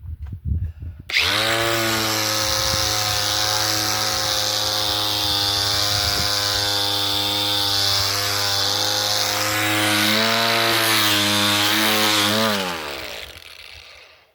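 Ryobi angle grinder fitted with a sanding disc, switched on about a second in and running at steady full speed while sanding a wooden fence picket. Near the end it is switched off and winds down, its pitch falling as it fades.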